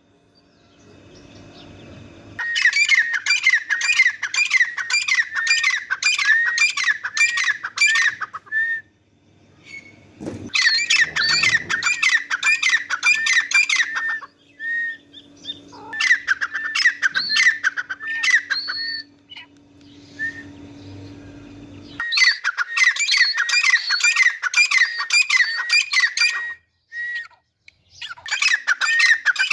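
Grey francolins calling: loud, shrill, rapidly repeated calls, about three a second, in bouts of several seconds with short pauses between.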